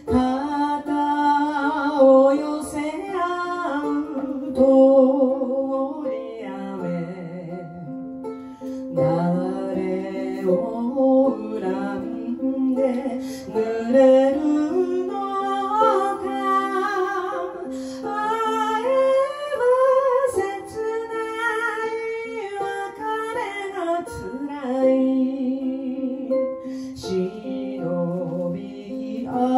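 A woman singing a Japanese song in phrases while strumming and plucking a ukulele.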